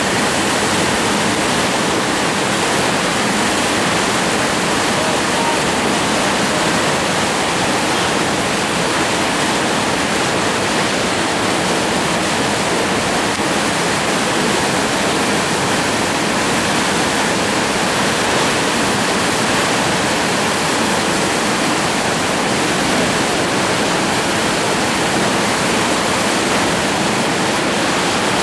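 Steady, loud rush of whitewater rapids, an even wash of water noise without breaks.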